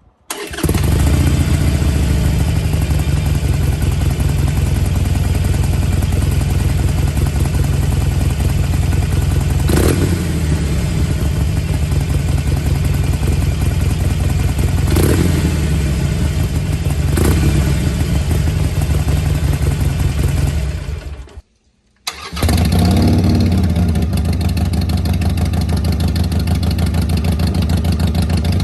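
Harley-Davidson Iron 883's air-cooled V-twin starting and running, with a few short throttle blips. About three-quarters of the way through it cuts off, and after a second of quiet it starts again.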